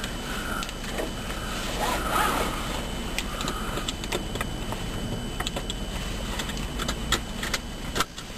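Inside a car: the steady low rumble of the engine and road, with scattered light clicks through the second half.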